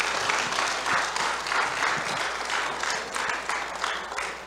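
Church congregation applauding, many hands clapping together, easing off near the end.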